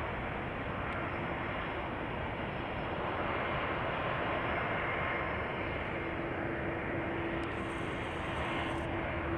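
Boeing 787-8 jet engines running at taxi power, a steady rumbling hiss; a low steady hum sets in about six seconds in as the airliner draws closer.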